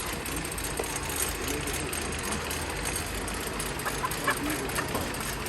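Steady mechanical running noise with a low hum, and a few short sharp clicks about four seconds in.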